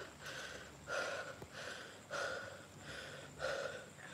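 A man breathing hard and fast close to the microphone, with quick in-and-out breaths about every half second, out of breath.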